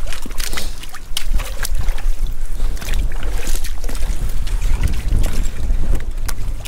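Wind buffeting the microphone in a steady low rumble, with scattered sharp taps and clicks.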